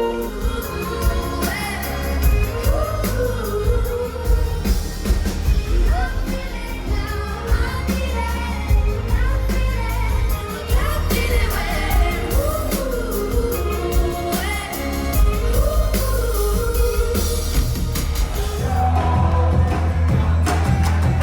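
Pop song with a singing voice over a steady bass and drum beat.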